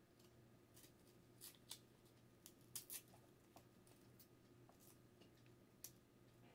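Faint, scattered ticks and scrapes of a small kitchen knife peeling the papery skin off garlic cloves by hand, over a low steady hum.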